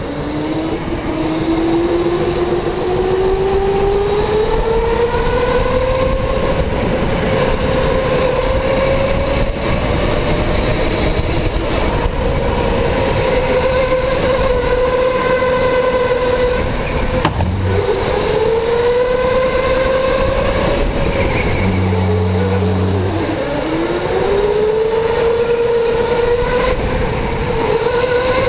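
Electric go-kart motor whining as the kart picks up speed. Its pitch climbs over the first several seconds, then holds high and dips briefly a few times as the kart slows for turns, over a steady rushing noise.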